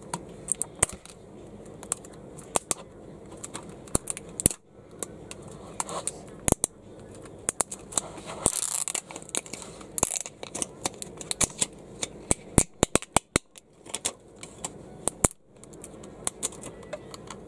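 Plastic wrapper being picked at and peeled off an LOL Surprise Under Wraps capsule by fingers: scattered sharp crackles and clicks, with two longer crinkling rips about eight and ten seconds in. The wrapper is only coming away on one side.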